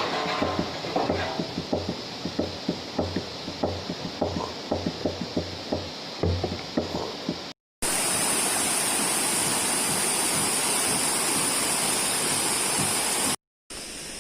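A quick run of sharp taps and knocks over a low, regular thud for about seven seconds. After a brief cut, the steady rush of a waterfall follows for about five seconds, ending in another cut.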